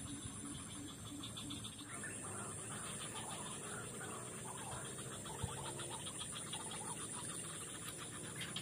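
Steady high buzzing of an insect chorus, with many scattered bird calls from about two seconds in.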